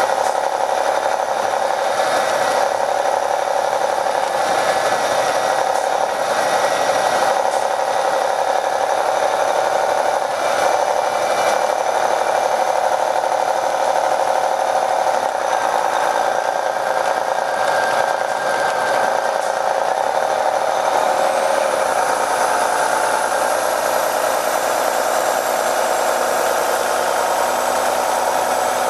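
MCI D4500 coach's Detroit Diesel Series 60 engine and Allison B500R transmission running steadily, heard from inside the bus. A thin high whine rises in pitch over the last several seconds.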